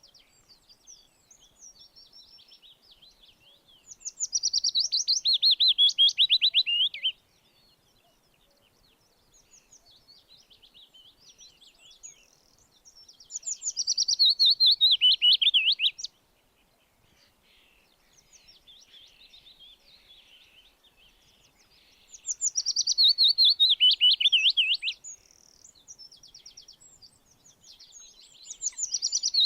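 Songbird singing: loud, rapid trilled phrases about three seconds long that fall in pitch, repeated about every nine seconds, with softer chirps in between.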